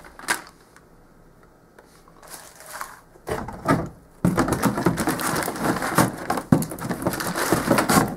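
Plastic parts bags crinkling and rustling in a cardboard box as a kit is packed away, with a plastic car body shell handled and laid on top. A few short rustles come first, then continuous crackling from about four seconds in.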